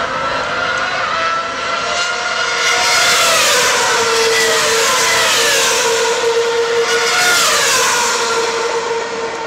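Formula One cars racing past at high revs, each engine note falling in pitch as a car goes by, loudest about three seconds in and again near eight seconds. A steady high note holds underneath from about four seconds in.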